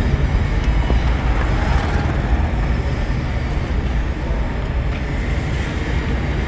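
Steady low rumble of an engine idling in the background.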